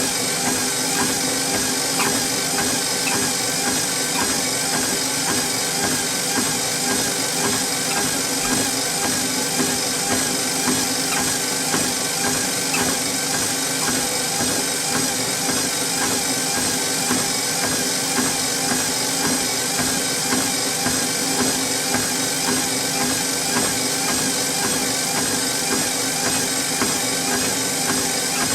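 A treadmill running steadily, its motor whining and its belt humming, with the regular footfalls of someone walking on the belt.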